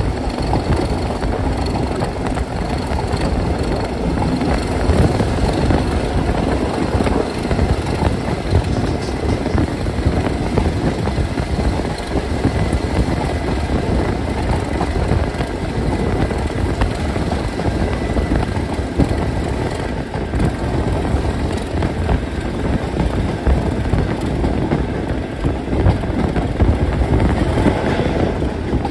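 Class 37 diesel-electric locomotive's English Electric V12 diesel running steadily under power as the train moves, heard from just behind it with wind rushing past the open carriage window. A faint steady whistle sits over the engine sound early on.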